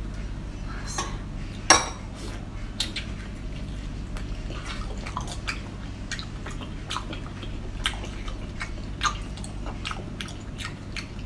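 Close-miked eating: cooked king crab being pulled apart by hand and chewed, a scatter of small wet clicks and crackles with one sharp snap near the start, over a steady low hum.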